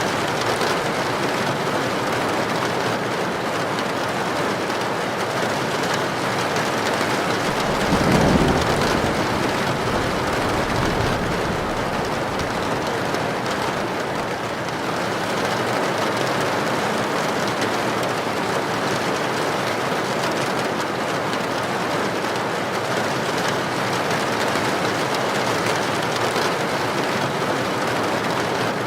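Heavy rain drumming steadily on a tin roof, with one short low rumble of thunder swelling about eight seconds in.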